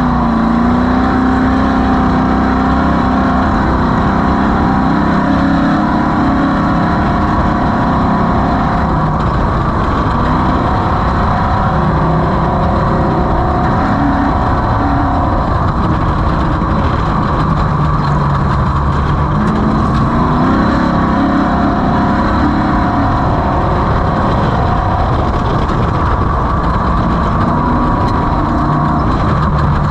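Off-road race vehicle's engine running hard at speed, its pitch holding and wavering with throttle, over a steady wash of wind and terrain noise.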